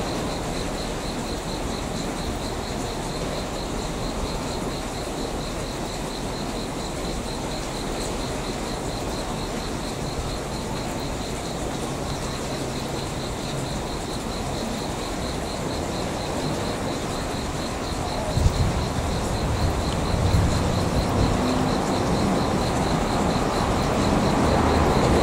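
Insects chirping in a steady, rapidly pulsing trill over a broad background noise. About eighteen seconds in, the low rumble of a slowly approaching train grows louder.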